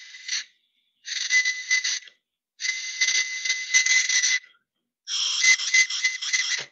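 Handmade unfired clay whistle being test-blown in three breathy blows of one to two seconds each, with a thin steady whistle tone under a lot of rushing air. The edge and windway are still being shaped for better airflow.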